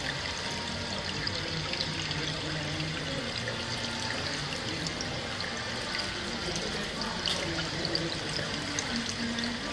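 Steady running and splashing water from the flow-through plumbing of goldfish display tanks, with small drips and ticks on top.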